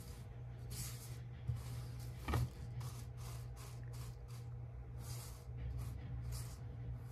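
Rhinestones being swept across a rhinestone template with a stiff-bristled brush: quick back-and-forth swishes of the bristles and small stones, about two a second. A single short knock about two and a half seconds in.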